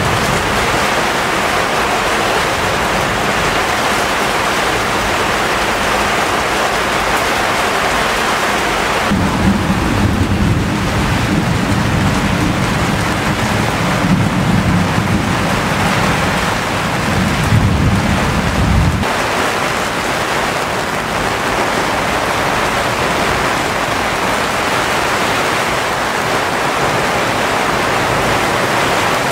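Heavy rain and wind of a tropical cyclone, a loud steady rushing noise, with a deep low rumble lasting about ten seconds from about a third of the way in.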